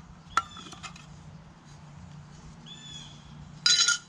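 A few faint bird chirps over a low steady hum, then one loud brief sound near the end.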